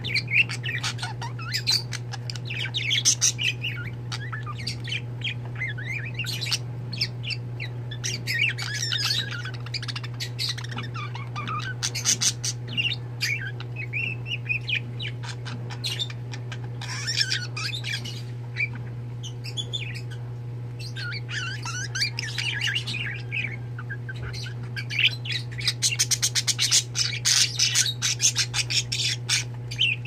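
Several budgerigars chirping and warbling together, with bouts of fast, clicking chatter that grow busiest near the end. A steady low hum runs underneath.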